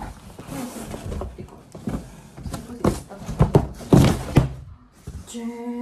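A large cardboard box being handled and shifted: knocks, thumps and scraping rustle of cardboard, loudest about four seconds in. A steady held note starts just before the end.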